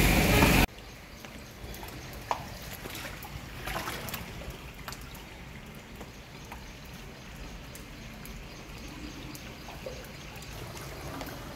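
A bucket scooping and sloshing through floodwater, cut off sharply under a second in. Then faint trickling and dripping of standing water, with scattered small ticks.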